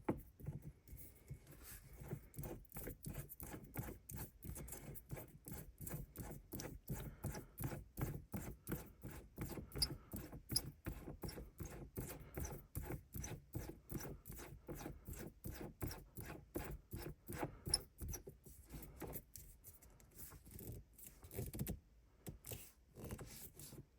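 Aftermarket shift knob being screwed by hand onto the threaded shift lever: a long run of soft rubbing, scraping ticks, several a second, thinning out and stopping near the end.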